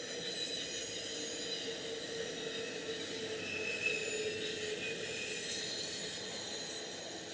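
A BNSF intermodal freight train's trailer and double-stack cars rolling past on a curve: a steady rumble of wheels on rail with thin, high squealing tones from the wheels.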